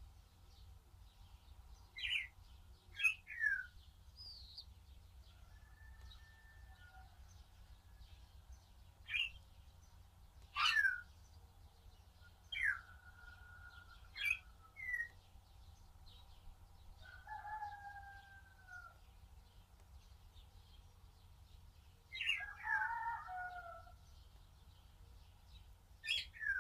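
Birds chirping: about ten short, sharply falling chirps scattered through, with a longer two-note call about two-thirds of the way in and a busy cluster of calls near the end, over a faint low hum.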